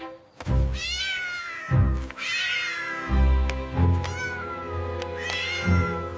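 Cat meows, about four, each falling in pitch, over background music with low, heavy beats.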